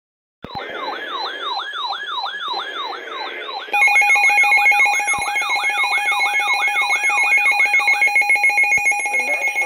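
Electronic siren sweeping down in pitch about two and a half times a second. A louder, rapidly pulsing electronic alarm tone joins it a few seconds in, and carries on alone after the siren stops near the end.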